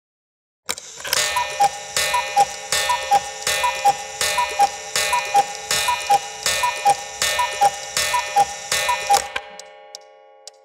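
Cuckoo clock going off: a repeated two-note cuckoo call, high then low, sounds about eleven times over a dense bell-like ringing. It stops abruptly about nine seconds in, leaving the ringing to fade, and the clock's ticking comes back near the end.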